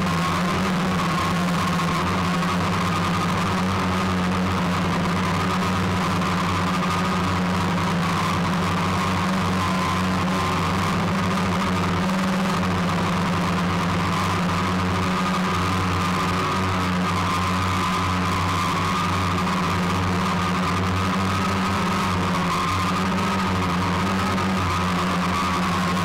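A small motor running at a steady speed: a constant low drone with a steady higher whine above it.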